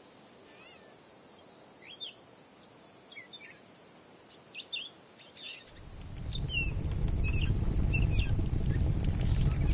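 Ambient birdsong: scattered short bird chirps over a steady high tone, then about six seconds in a much louder low rushing noise rises and holds under them.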